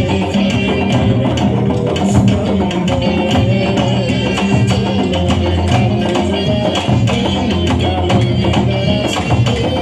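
Candombe drum ensemble playing a steady, driving rhythm: hand and stick strokes on the drumheads, with sharp clicks of sticks on wood.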